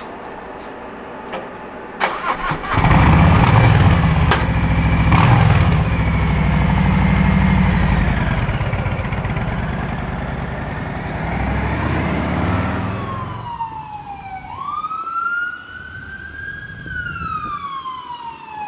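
Motorcycle starting: a couple of clicks about two seconds in, then the engine catches and runs loudly before fading away over several seconds. After that, a siren wails, rising and falling in pitch about every four seconds.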